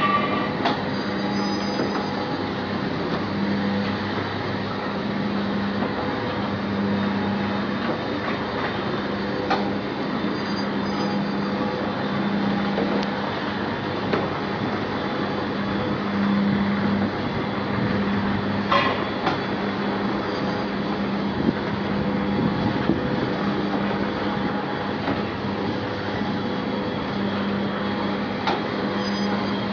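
A kiddie rotating airplane ride running: a steady mechanical noise from its drive with a hum that swells and fades, and a few sharp clicks.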